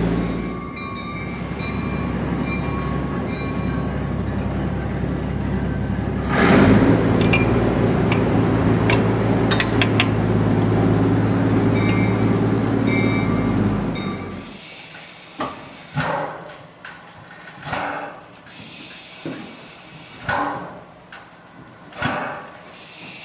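Steady machinery hum with several low steady tones, and a sudden loud burst of noise about six seconds in. The hum cuts off abruptly after about fourteen seconds, leaving a quieter room with short knocks and clanks every second or two.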